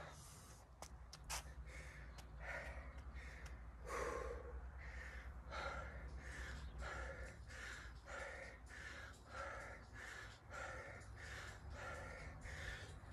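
A man breathing hard from sustained exertion, panting in quick, even breaths about one and a half a second while he squats. A few light taps come in the first second and a half.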